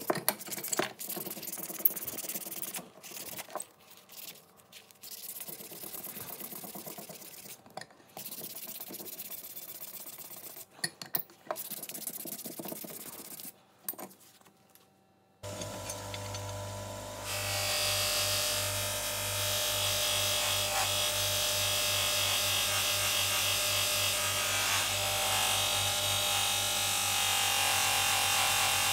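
Fine P1200 sandpaper rubbed by hand on a steel C-clamp's screw shaft and swivel pad, in short scratchy strokes with pauses. About halfway through a bench grinder starts with a steady low hum, and a couple of seconds later the steel screw is held against its spinning wheel, a loud steady polishing hiss over the motor.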